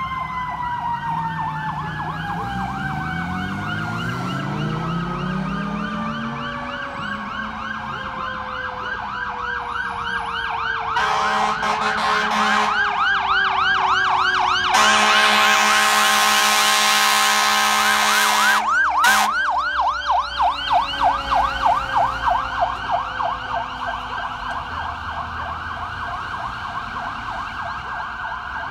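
Fire engine on an emergency run: an electronic siren yelps rapidly while a Q-siren's mechanical wail slowly winds down in pitch. About midway its air horns blast twice, the second time longest and loudest, then give a short toot. A vehicle engine revs up in the first few seconds.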